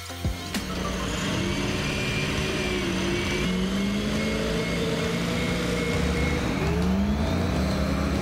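Large Caterpillar wheel loader with a log grapple, its diesel engine running steadily under a load of logs. The engine pitch drifts up and down and rises near the end. A few sharp knocks come in the first second.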